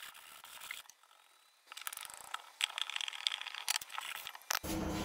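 Hands brushing sawdust off and handling a freshly CNC-carved wooden plank on the work table: rustling and scraping of wood and chips, with a quiet pause about a second in and a string of short scrapes and clicks after it. Near the end a sharp click is followed by a steady hum.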